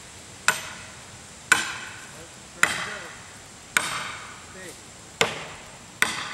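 An axe chopping into a standing tree trunk: six sharp wooden blows about a second apart, each with a short echoing tail.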